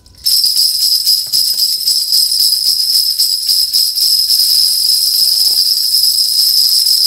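Small metal bells jingling, shaken without a break, giving a bright, steady high-pitched ringing.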